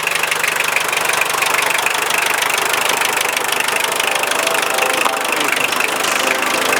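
An engine running steadily, with a fast, even chatter.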